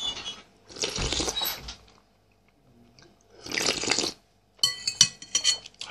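Soup slurped noisily off a spoon, twice, each slurp about a second long, followed near the end by a quick run of sharp clicks and smacks.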